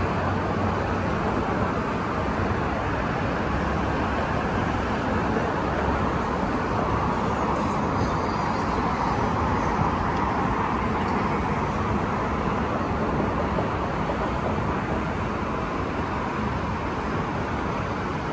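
Steady road traffic noise, a continuous wash of passing cars, growing a little louder around the middle.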